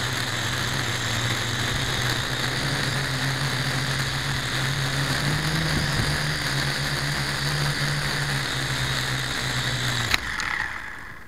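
Toy quadcopter's motors and propellers buzzing steadily, close to the onboard camera's microphone, rising a little in pitch around the middle. About ten seconds in there is a sharp click as the drone comes down into the grass, and the motors wind down and stop.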